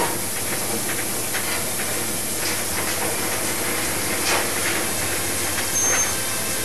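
Rotary wagon tippler turning a narrow-gauge peat wagon over to empty it: steady machinery noise with a few knocks and a brief high squeal about six seconds in.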